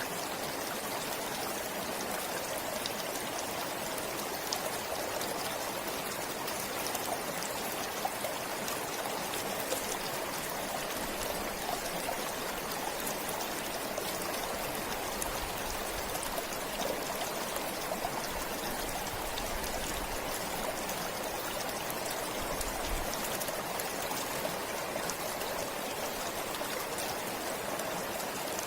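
Small forest stream flowing steadily, a continuous wash of running water with fine splashing detail.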